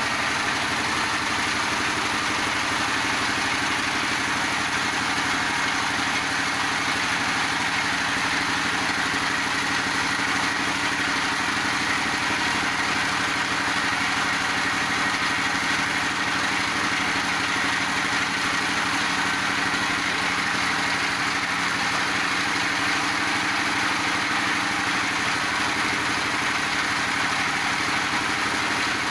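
Multi-purpose livestock feed pellet machine running steadily, a constant, even mechanical drone with no change in pace.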